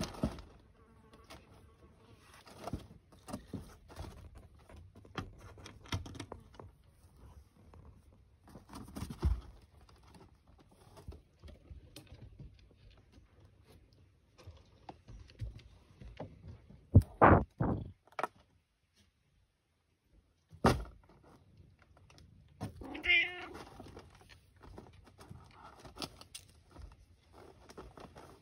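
An F2 Bengal hybrid cat meowing once, briefly, about two thirds of the way in, amid scattered knocks and rustles; the loudest sound is a quick run of sharp knocks a little past the middle.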